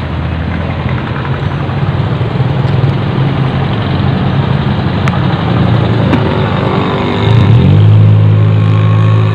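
Motor vehicle engine running steadily, then rising in pitch and getting louder about seven seconds in as it speeds up.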